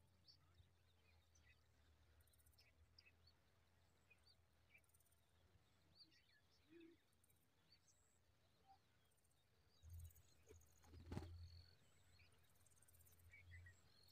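Near silence outdoors: faint, scattered short bird chirps over a low steady hum, with a soft knock about eleven seconds in.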